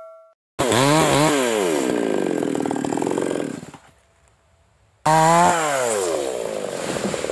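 Two-stroke chainsaw running in two loud bursts with a short gap between. In each burst the engine pitch climbs and then sinks as the saw works through teak wood. The tail of a bell chime fades out at the very start.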